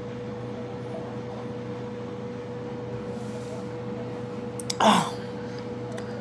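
A woman's short gasping groan with a quickly falling pitch about five seconds in, a reaction to the potent taste of the bowel-prep drink, over a steady low hum.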